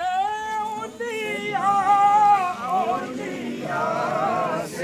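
Men's voices chanting a religious recitation in long, held, wavering melodic phrases, with a new phrase starting near the end.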